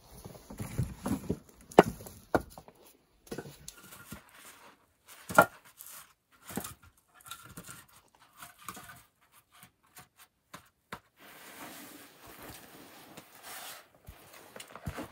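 Firewood knocking and clattering: split pieces dropped into a plastic sled, then round logs clunking against each other as they are stacked by hand. The knocks are separate and irregular, with a stretch of soft rustling near the end.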